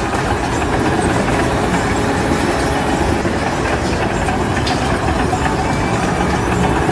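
Loud, steady mechanical rumble and rattle, with no clear rhythm or pitch.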